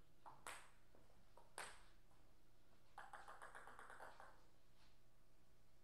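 Table tennis ball bouncing, with short sharp clicks. There are single bounces about half a second and a second and a half in, then a quick run of small, rapid bounces off the table from about three seconds to just past four, as the server bounces the ball low before serving.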